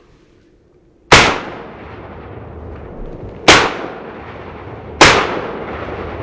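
Three shotgun shots in the field during a turkey hunt, the second about two and a half seconds after the first and the third a second and a half later. Each is a sharp crack that echoes away over a couple of seconds.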